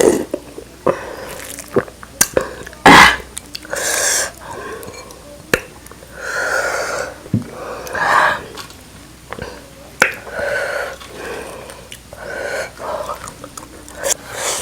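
Close-miked eating sounds: irregular mouth noises and swallows every second or two, with sharp clicks from the lips or utensils between them and one louder burst about three seconds in.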